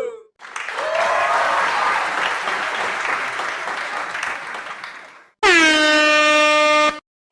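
A crowd cheering and applauding sound effect that fades out, followed by a single air horn blast of about a second and a half that dips in pitch at the start and cuts off suddenly.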